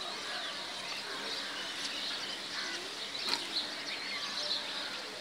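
Small birds chirping repeatedly over a steady background hiss, with one sharp click about three seconds in.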